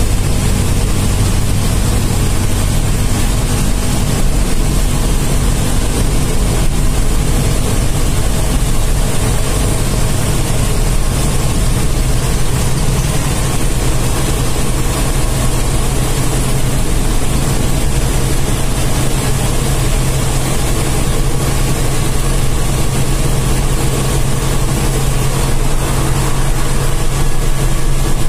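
BharatBenz 1623 bus's 230 hp diesel engine running steadily at cruising speed, heard from inside the cab with road and tyre noise. Its low engine note changes pitch about twelve seconds in.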